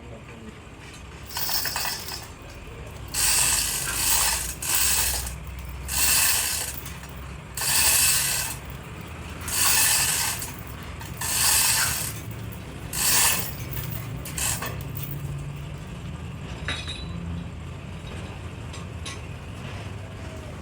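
A metal ratcheting mechanism worked in about eight short strokes, each a brief rasping burst, roughly one every second and a half; the strokes stop a little past halfway.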